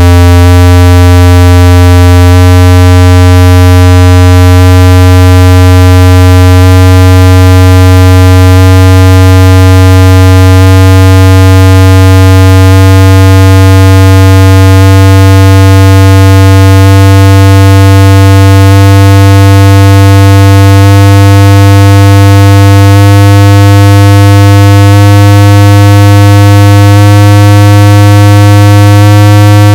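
Synthetic test tones from a car-audio sound quality judging CD: a loud, steady low bass tone held throughout, with a second, higher tone above it that steps up a little in pitch about every two seconds.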